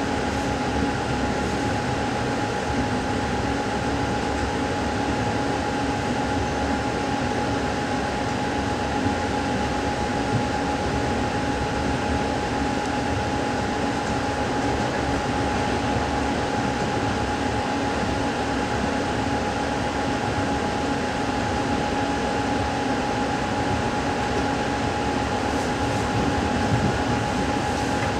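Inside a moving passenger train carriage: the steady running noise of the train, with a constant hum.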